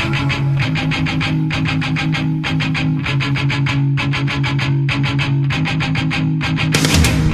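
Background music: a rock track with distorted electric guitar playing a steady, fast-picked riff over a bass line, growing fuller near the end.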